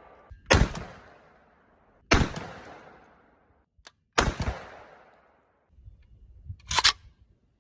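Shotgun fired three times, about one and a half to two seconds apart, each shot trailing off in a long echo. Near the end comes a short, sharp clack.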